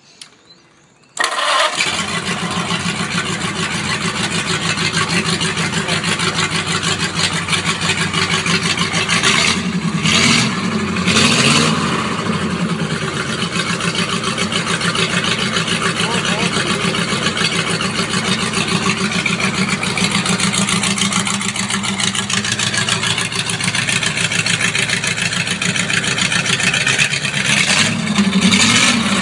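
Ford 8BA flathead V8 (239 ci) with triple Stromberg 97 carburettors and open stainless-steel exhaust headers, running on a test stand. It fires up about a second in and settles into a fast, pulsing idle, revved briefly around ten seconds in and again near the end.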